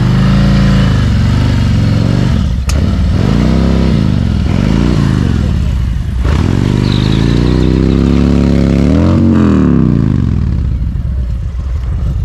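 Harley-Davidson V-twin motorcycle engine under way, its pitch rising and falling several times as the throttle is opened and closed. There is one sharp click a few seconds in, and the sound cuts off suddenly at the very end.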